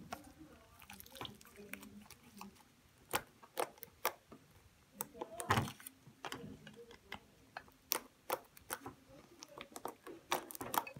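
Pink slime being squeezed and kneaded by hand, giving irregular wet clicks and small pops, with one louder squelch about five and a half seconds in.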